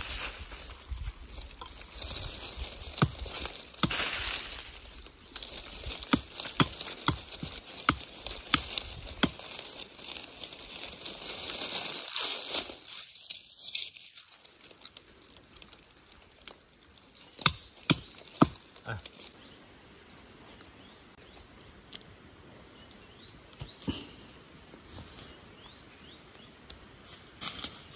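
Rustling with many irregular sharp clicks and snaps, as of material being handled, and a louder stretch of hissing rustle about twelve seconds in.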